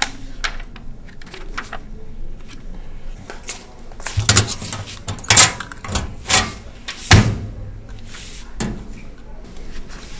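A series of sharp knocks and bangs, about five over four or five seconds, starting near the middle, with two loudest hits among them.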